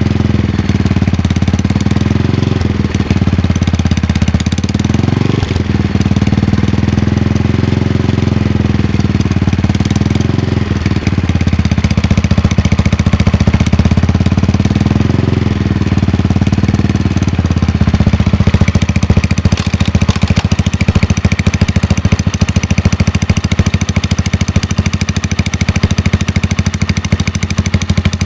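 Engine idling after a cold start with a rapid, steady clicking, which the owner places on the primary side. The idle speed wavers slightly for the first half, then settles.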